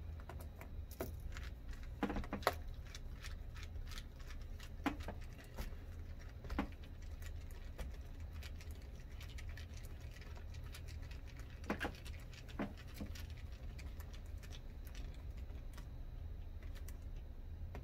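Scattered small clicks and taps of small metal nuts and screws being handled and threaded on by hand at a laptop's plastic hinge mount, a few sharper clicks standing out, over a low steady hum.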